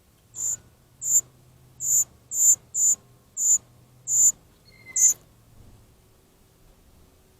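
Young gray catbird begging: eight short, very high-pitched calls repeated about every half second over the first five seconds, whining for attention from an adult.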